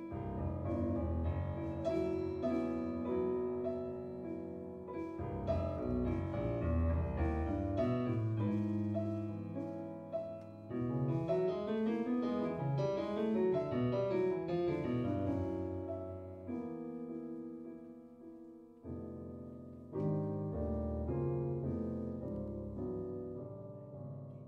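Jazz piano playing chords and quick runs up and down the keyboard. A last chord struck about 20 seconds in rings out and dies away, ending the piece.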